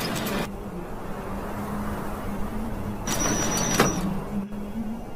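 End-card animation sound effects: a steady low hum with a short whoosh at the start and a longer one about three seconds in, which carries a thin high ring.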